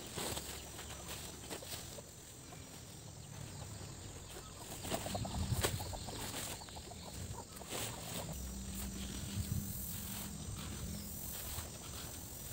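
Rustling and scraping of woven plastic sacks and a plastic tarp as dried rice paddy is scooped and bagged by hand, with scattered clicks and knocks and a louder burst of handling about halfway through.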